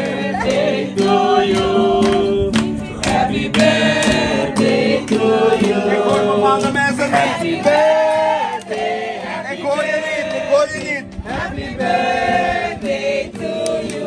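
Music with several voices singing, the notes held for about a second at a time.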